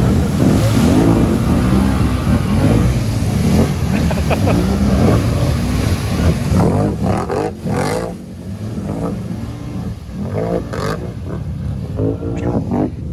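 ATV engines revving hard as the quads plough through a creek, over the rush and spray of water thrown up by their tyres. The engine note rises and falls with the throttle and eases off somewhat about two-thirds of the way through.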